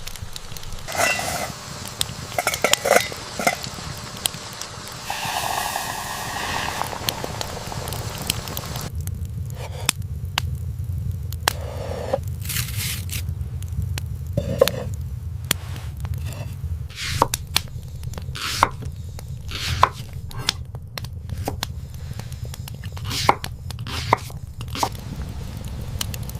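Camp cooking sounds: cookware and utensils clattering and scraping in an irregular string of sharp knocks, over a steady low rumble.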